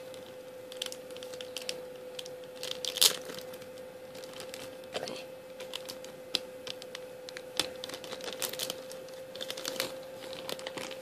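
Thin plastic packaging crinkling and tearing in irregular bursts of rustles and crackles as a small item is worked out of its plastic bag, with the loudest crackle about three seconds in. A faint steady hum runs underneath.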